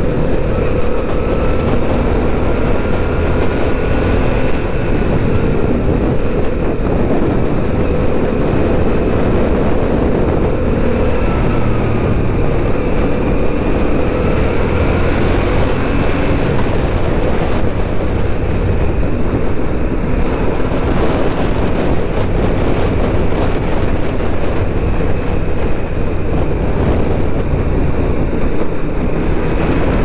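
Motorcycle riding at steady road speed, heard from the rider's helmet: the engine runs under load, its pitch drifting up and down a little through the bends, under heavy wind rush on the microphone.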